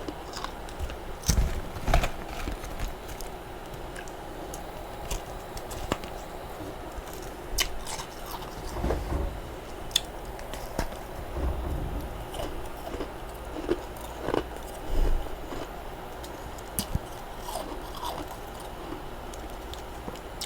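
Freezer frost being chewed close to the microphone: irregular crisp crunches and clicks, with the loudest bites about a second and a half in and again around fifteen seconds.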